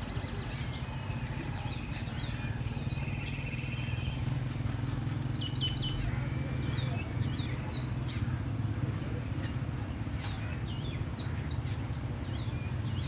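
Birds chirping and calling: many short, quickly sweeping high notes throughout, with a brief rapid trill about three seconds in, over a steady low rumble.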